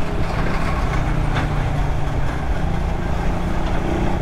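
Suzuki Raider 150 carburettor model's single-cylinder four-stroke engine running at a steady cruise, with a steady rush of wind and road noise.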